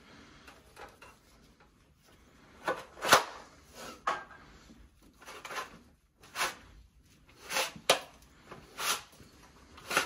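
Galvanized sheet metal clanking and popping as a 1-inch flange is bent along its edge with a 24-inch hand folding tool. Quiet at first, then a string of separate sharp clanks at uneven intervals from about three seconds in.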